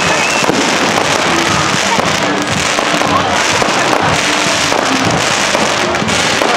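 Fireworks display: rockets going up and shells bursting in a dense, unbroken crackling and popping.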